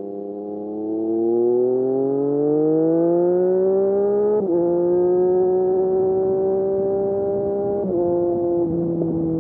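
Triumph Street Triple RS's inline three-cylinder engine through an SC Project S1 slip-on exhaust, accelerating with a rising pitch. Its pitch drops sharply at an upshift about four and a half seconds in, then it pulls steadily. The pitch dips briefly again near eight seconds, and the engine eases off toward the end.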